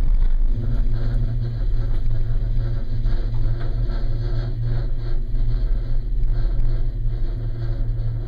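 Steady low drone of a gondola cabin riding along its haul rope, heard from inside the enclosed cabin.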